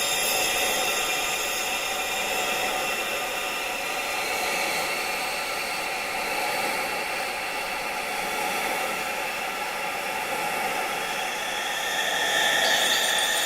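Steady rushing wind-like noise with many sustained high-pitched tones layered over it, a tinnitus sound-therapy mix. Near the end a couple of the tones grow brighter and the whole sound gets a little louder.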